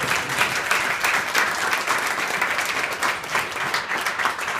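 A room of seated guests applauding: many hands clapping together.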